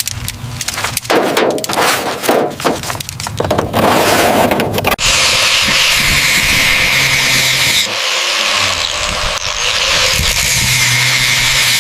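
Irregular scraping strokes on a car's body for about five seconds, then a power tool starts and runs steadily with a loud hiss.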